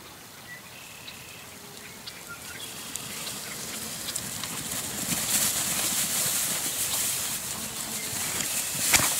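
Rustling, pattering footsteps through grass and loose hay, getting louder from about three seconds in, with one sharp knock near the end.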